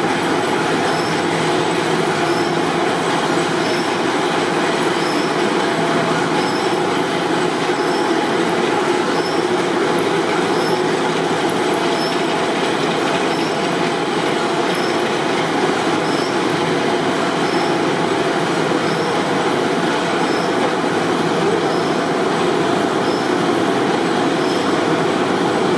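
Tea factory machinery running: CTC leaf-cutting machines and their electric motors making a loud, steady mechanical din, with a faint high tick about once a second.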